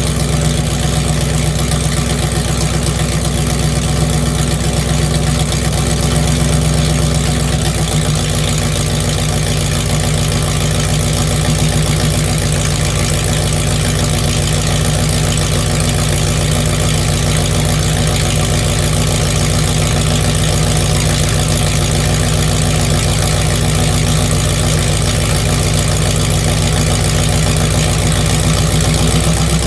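The rebuilt 454 big-block V8 of a 1988 Chevrolet Suburban idling steadily. Its note shifts slightly about eight seconds in.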